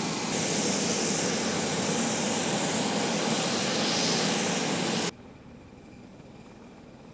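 CV-22 Osprey tilt-rotor engines running on the ramp: a loud, steady turbine noise with a high whine over it. About five seconds in it cuts off abruptly, leaving a much fainter, more distant aircraft noise.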